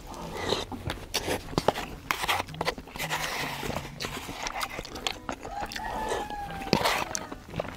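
Close-miked eating sounds of someone finishing instant-ramen broth with rice mixed in: wet chewing and slurping, broken by many sharp little clicks.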